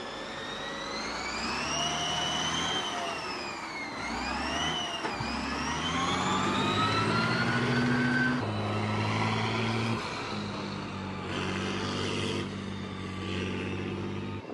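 British CVR(T)-type tracked armoured personnel carrier driving down the ramps of a low-loader trailer. Its engine revs with a high whine that rises and falls in pitch, dipping twice about four and five seconds in and climbing again. It then settles into a steadier, lower engine note for the second half.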